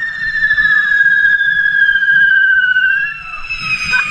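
Correfoc fireworks spraying sparks from the devils' forks, giving long shrill whistles that slowly fall in pitch, one overlapping the next, over a low crowd hubbub.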